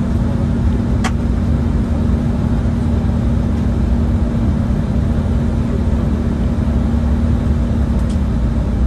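Cabin noise of an Embraer E190 taxiing: a steady low rumble and hum from its General Electric CF34 turbofan engines at low taxi power, with no rise in power. A sharp click about a second in.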